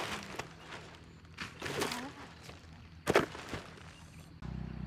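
Knocks and rustling as a soil-packed root clump is handled and dropped on a plastic sheet, with sharp knocks at the start and about three seconds in. Near the end a steady low hum begins.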